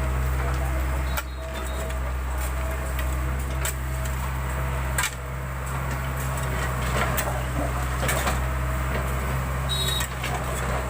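Diesel engine of a JCB backhoe loader running steadily, with a few sharp knocks and clanks now and then.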